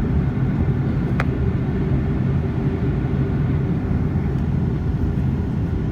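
Steady rumble of airliner cabin noise, the engines and airflow heard from inside the cabin, with one short click about a second in.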